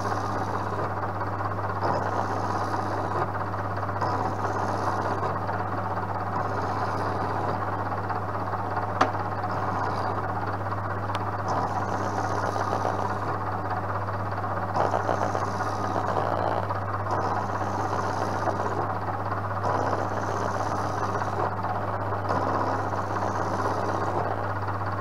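Vertical milling machine running steadily, its long-series end mill cutting a nylon workpiece that is being turned on a spin indexer. Under a constant motor hum, a cutting hiss swells and fades every two to three seconds, and there is one sharp click about nine seconds in.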